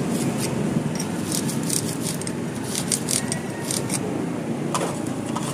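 Short scratchy strokes of hand-rubbing rust off a bicycle freehub's metal ratchet teeth, irregular at about two a second and thinning out near the end, over a steady low background hum.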